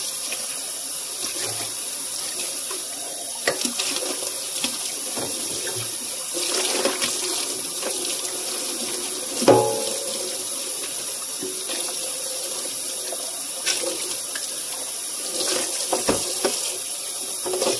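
Kitchen faucet running into a metal sink while glasses are rinsed by hand, with occasional knocks and clinks of dishes. One louder clink rings briefly about halfway through.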